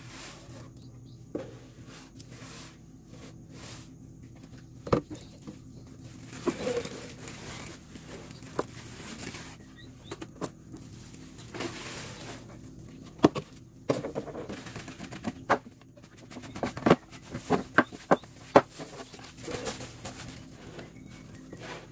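Live mealworms (ulat hongkong) being poured from a plastic scoop into a plastic bucket and gathered by hand across a wooden tray: a dry rustling with scattered sharp clicks and taps, which cluster more densely in the second half.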